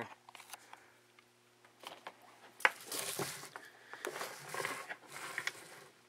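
Handling noise: faint clicks, then from about halfway a few short bursts of rustling and clatter as a battery lead and small hand tools are moved around on the workbench.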